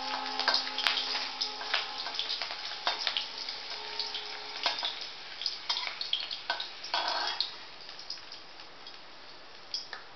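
Whole green chillies sizzling and spitting in hot oil in a steel kadhai, with a steel spatula scraping and tapping the pan. The crackling thins out after about seven seconds, just after a heavier scrape as the fried chillies are lifted out.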